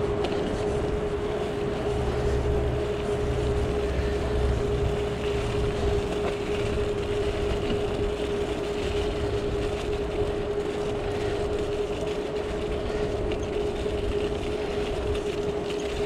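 Bicycle rolling along a path, heard from a camera on the handlebars: a steady rumble of tyres and bike with a constant whine, the rumble heavier for a few seconds near the start.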